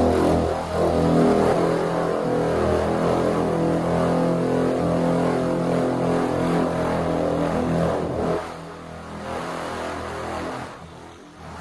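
Electric paint polisher running steadily against car paint, a continuous motor hum with a slight waver in pitch. It drops quieter about eight seconds in and dies away near the end.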